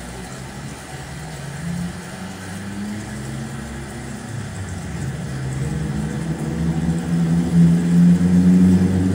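A low, steady engine-like hum with a few held pitches, growing gradually louder.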